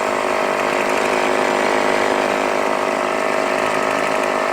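Tomy Turnin' Turbo Dashboard toy's battery motor and gearing running steadily with a whirring, rattling mechanical sound.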